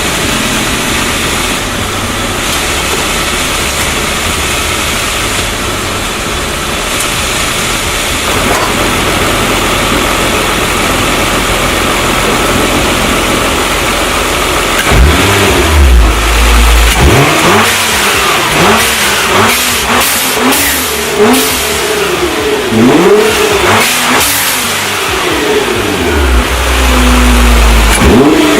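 Nissan GT-R's twin-turbo V6 running steadily, then from about halfway in blipped in a string of quick revs that rise and fall. Each rev ends with the release of Go Fast Bits T9202 blow-off valves, set fully open with whistling trumpets.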